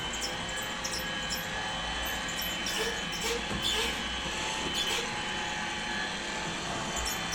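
Tefal robot vacuum cleaner running: a steady high motor whine over a low hum, with scattered light clicks.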